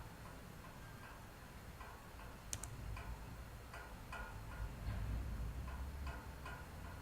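A run of light clicks at a computer, a few a second and slightly uneven, with one sharper click about two and a half seconds in, over a low hum.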